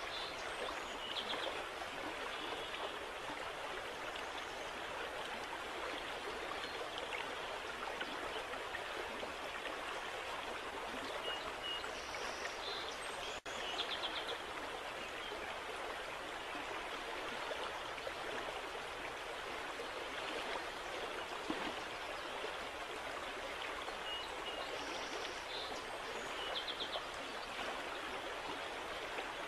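Steady rush of flowing water with brief high chirps that come back three times. The sound cuts out for an instant about 13 seconds in.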